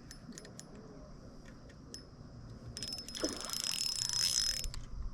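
Ultralight spinning reel being cranked: scattered clicks early on, then about three seconds in a quicker run of ticking with a high whine for roughly two seconds.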